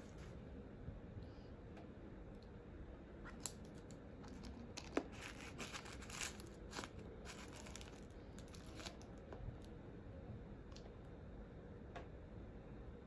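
Faint handling noise of leather sneakers being picked up and turned over: scattered light taps and crinkly rustles from the tissue-paper stuffing, busiest from about three to nine seconds in, with the sharpest tap around five seconds.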